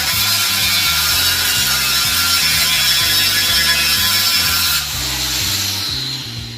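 Handheld power grinder working the cracked alloy wheel, a harsh, steady grinding that lets off about five seconds in and winds down. Background music with a repeating bass line runs underneath.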